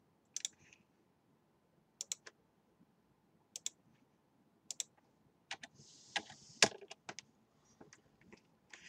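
Computer keyboard keystrokes and mouse clicks: about a dozen separate sharp clicks, several in quick pairs, with a brief soft rustle a little past halfway.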